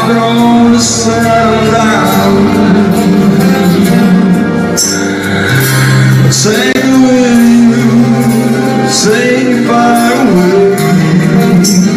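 Live acoustic rock band: a male voice singing over two acoustic guitars.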